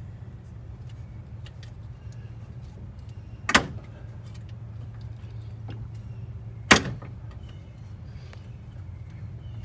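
Sharp metallic clanks, two about three seconds apart and a third right at the end, as a small pry bar used to bar over a Detroit Diesel 6-71 engine by hand slips off at the top of its stroke instead of turning the engine. A steady low hum runs underneath.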